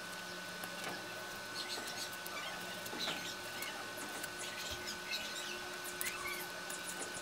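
Craft cutter knife blade cutting through cardboard along a traced outline: an irregular run of small scratchy crackles and ticks, over a faint steady background tone.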